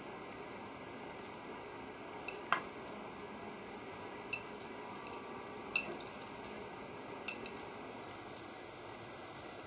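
Dishes and utensils clinking lightly, about five separate clinks, some with a short ring, over a steady background hiss.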